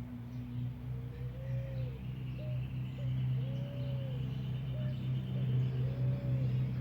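A dove cooing: three drawn-out, arching coos about two seconds apart, with short notes between them. Under it runs a steady low hum, and a small bird trills faintly and high in the middle.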